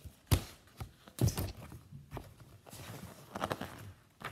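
A picture book being handled and its pages turned: a series of paper rustles and soft knocks, the sharpest about a third of a second and a little over a second in.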